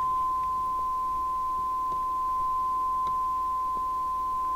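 Steady, unbroken single-pitch audio test tone, used to drive a CB radio's transmitter while its AM modulation is set.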